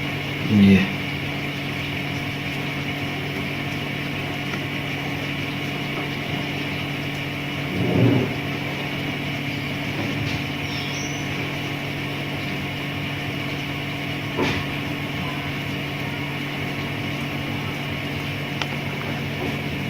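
Steady hum of an exhaust fan's electric motor running, its new bearing just oiled, with a few brief knocks about one, eight and fourteen seconds in.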